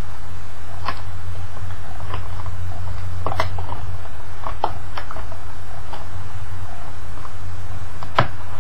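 Scattered clicks and scrapes of a pen poking and prying at a phone case's cardboard-and-plastic packaging to open it, the sharpest click near the end, over a steady low hum.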